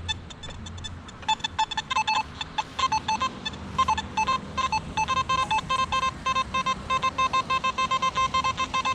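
Nokta Simplex+ metal detector giving target signals: rapid short beeps starting about a second in, uneven at first, then steady at about three a second as it is swept back and forth over a target that the detectorist reads as foil.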